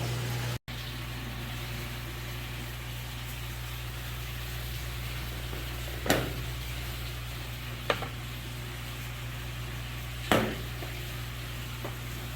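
Steady machine hum with a hiss, broken by three short, sharp knocks in the second half, with a brief cut-out near the start.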